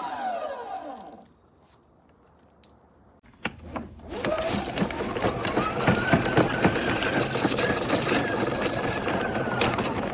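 Electric pressure washer motor spinning down to a stop, then, after a short pause and a couple of clicks, starting again with a rising whine that settles into a steady running pitch with a rattle.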